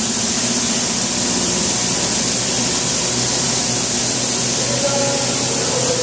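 Skid steer engine running with its rotary broom attachment spinning, the bristles sweeping a concrete floor: a steady hiss over a low engine hum.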